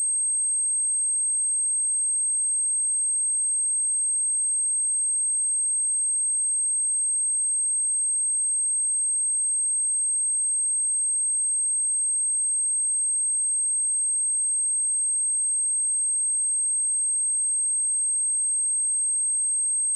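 A single steady, high-pitched 8386 Hz sine-wave test tone, held unchanged, played to test a speaker and shake dust and water out of it.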